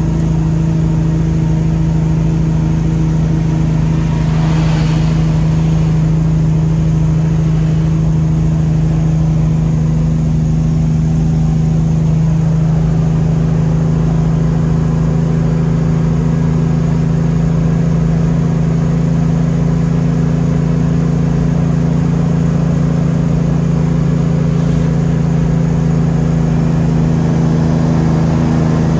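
Kenworth truck's diesel engine running at a steady note, heard inside the cab. The note drops slightly about twelve seconds in.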